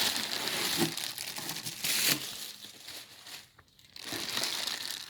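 Packaging being handled and unwrapped, crinkling and rustling, with a brief pause a little past halfway.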